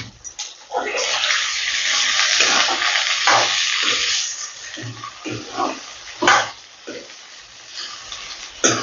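Onions, potatoes and chickpeas sizzling in hot mustard oil in a steel kadai. The sizzle is a loud hiss for a few seconds, then dies down, broken by a steel ladle scraping and knocking against the pan as the food is stirred.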